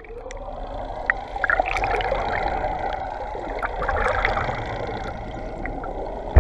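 Underwater sound from a camera just below the sea surface: a muffled, steady rushing of water with gurgles, scattered small clicks and brief squeaks, over a low hum.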